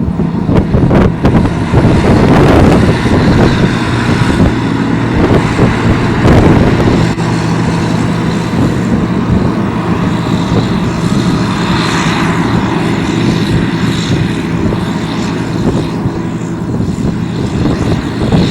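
Harvest machinery engine running steadily at a constant speed, with a noisy rumble over it.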